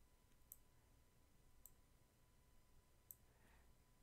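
Near silence broken by three faint, sharp clicks about a second apart, typical of computer mouse clicks while working in an image editor.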